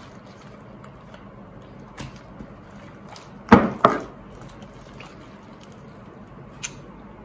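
Knife and raw turkey leg handled on a plastic cutting board during deboning: quiet cutting and handling with a few light clicks, and two sharp knocks on the board about halfway through, less than half a second apart.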